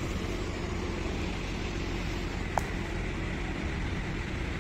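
Steady street ambience: a low hum of city traffic, with a single short tick about two and a half seconds in.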